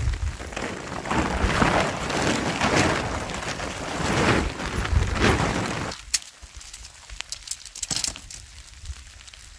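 Tent fabric rustling and flapping as it is unfolded and shaken out. About six seconds in it drops suddenly to a quieter hiss with a few sharp clicks as tent pole sections are fitted together.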